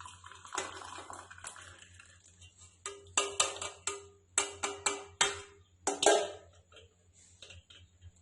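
A run of light clinks and taps, several a second, each with a short ringing tone, between about three and five seconds in, then a louder clatter about six seconds in.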